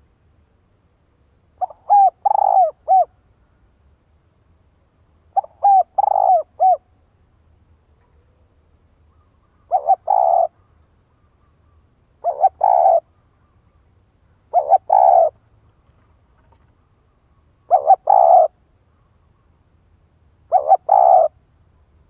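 Caged spotted dove cooing its calling song, seven phrases spaced about three seconds apart. The first two phrases are longer and made of several notes; the later ones are shorter.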